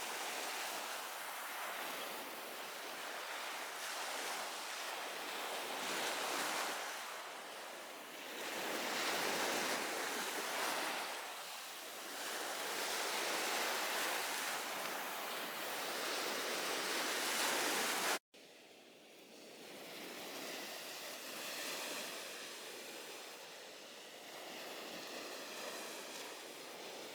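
Sea waves washing onto a beach, swelling and easing every few seconds, with some wind on the microphone. The sound drops out abruptly about two-thirds through and comes back quieter.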